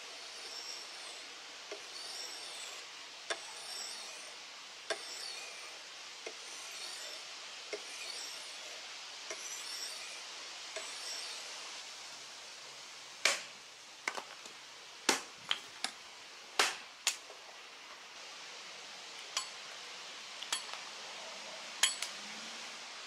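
Hand-forged tomahawk blade drawn across a whetstone in slow strokes, a soft scrape about every one and a half seconds. After about twelve seconds come sharp hatchet chops into a green stick on a wooden stump, about ten of them, the loudest in quick succession and the last few spaced out.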